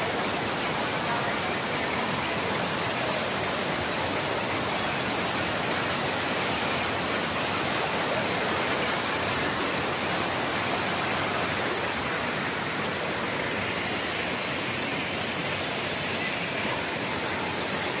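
Floodwater rushing steadily over a tank's overflow weir and churning into white water below, an even, unbroken rush of water.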